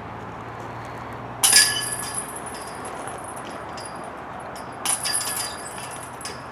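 Discs hitting the metal chains of a disc golf basket twice, about three and a half seconds apart, each strike a loud metallic jangle that rings on for a moment.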